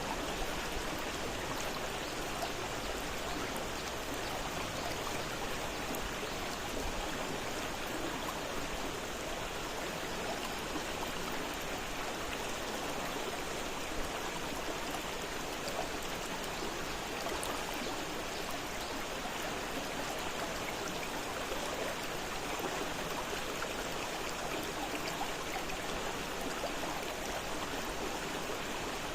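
A fast-flowing river rushing and splashing steadily over its bed.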